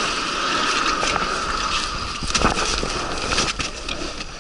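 Inflatable PVC boat being pushed off the shore into the water: the hull scrapes and rubs over the sandy bank, with water noise and a few knocks from handling.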